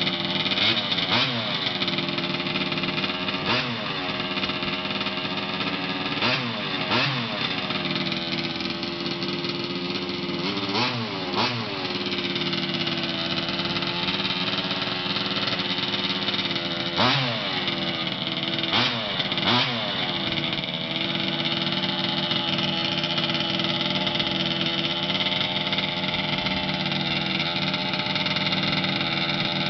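Engine idling through its exhaust pipe, with about nine quick throttle blips, each a short rise and fall in pitch, over the first twenty seconds, then a steady idle.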